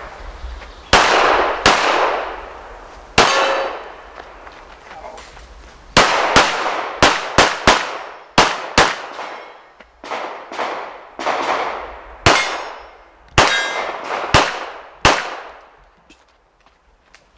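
Pistol shots from a Smith & Wesson M&P9 Pro firing 9 mm, about sixteen in quick pairs and strings with short pauses between. Each crack rings out with a long echo.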